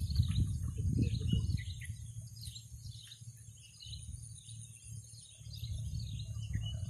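Small birds chirping repeatedly, many short high calls overlapping, over a low rumble that is strongest in the first second and a half and then fades down.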